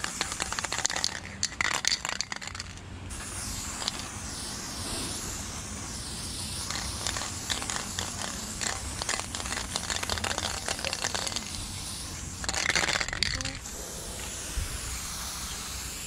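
Aerosol spray paint can hissing as paint is sprayed onto a concrete wall, with bursts of rattling clicks near the start and again about three quarters of the way through.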